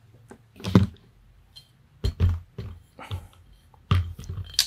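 A series of separate knocks and clunks as an FX Impact M3 air rifle is handled and lifted on a hard tabletop.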